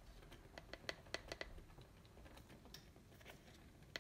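Faint, light clicks and taps of a plastic measuring spoon being handled against its container, bunched in the first second or so and a few more past halfway.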